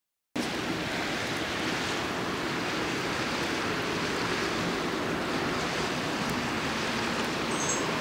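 Firewood logs burning on their own, without pellets, in a secondary-combustion fire pit: a steady rushing noise of the flames with a few faint crackles. It cuts in abruptly just after the start.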